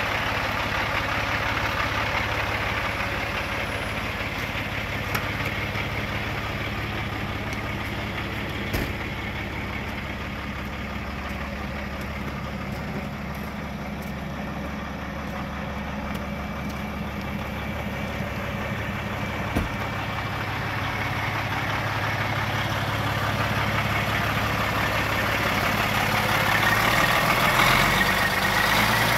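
Diesel engine of a 2005 Freightliner Columbia day-cab truck tractor idling steadily, growing louder over the last several seconds as it is heard up close in the open engine bay. A few faint clicks stand out once or twice.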